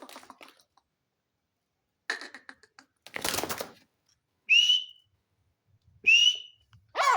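Francolin (teetar) calling: two short, loud, rising whistled notes about a second and a half apart, preceded by a couple of rougher, noisier bursts and followed by a lower call near the end.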